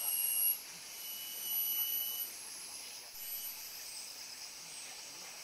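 Rainforest insects buzzing in high, steady tones that come and go in spells of a second or so, over a faint hiss of forest background.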